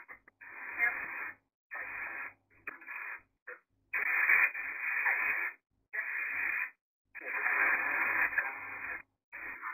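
Ghost box (spirit box) radio sweeping through stations: choppy bursts of radio hiss and broken broadcast sound that cut in and out every half second to a second, thin and without treble.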